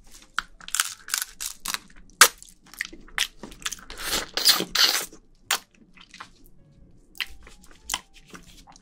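Close-miked wet eating sounds of spicy marinated raw crab (yangnyeom gejang) being bitten, sucked and chewed: quick clusters of crackles, smacks and squishes, densest in the first five or so seconds and sparser near the end.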